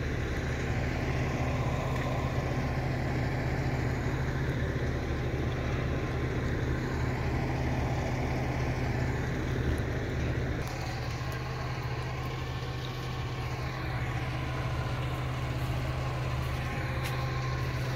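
Garbage truck's diesel engine idling steadily, a low even hum.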